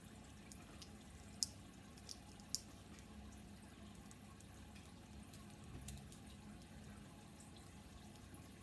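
A few faint, sharp clicks of plastic Bakugan toy parts being handled and pressed while being folded into ball form, over a low steady hum.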